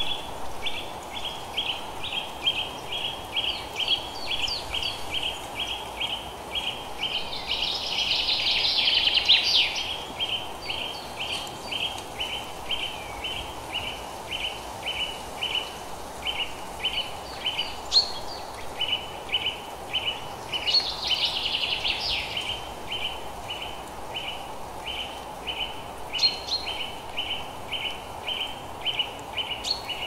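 Nature ambience: a short high chirp repeated about two times a second without a break, with two brief spells of busier bird song, over a steady low hiss.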